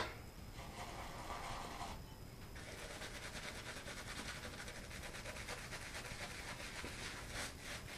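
Kent BLK2 badger-hair shaving brush lathering shaving soap on a stubbled face: a faint, rapid scrubbing swish of wet bristles, steady from about two and a half seconds in.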